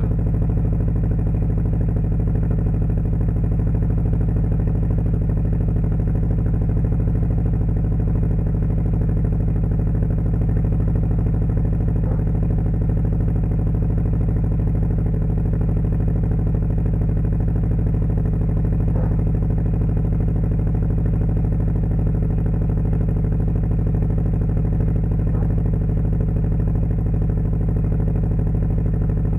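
Subaru Impreza WRX STI's turbocharged flat-four boxer engine idling steadily, heard at the tailpipe of its HKS Super Fire Racing M40i exhaust while it warms up after a cold start.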